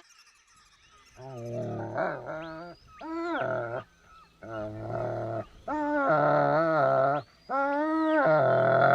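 Dog giving a series of five or six long, low, pitched growl-like calls, each about a second long with bending pitch and short gaps between them.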